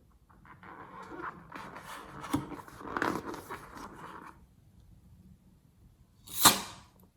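Slime being squished and stretched by hand, a crackly, sticky rustle of many small clicks for about four seconds. About six seconds in comes one short, loud pop.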